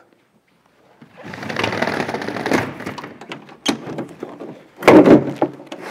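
Roller shutter of a fire truck's equipment compartment rattling as it is pushed open, followed by a few clicks and a loud metallic clunk about five seconds in.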